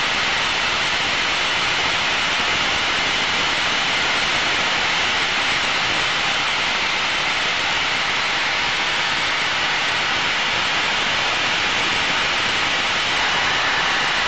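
Aero L-39 Albatross jet's engine and rushing air in the cockpit, an even steady hiss, during a banked turn in the airport traffic pattern.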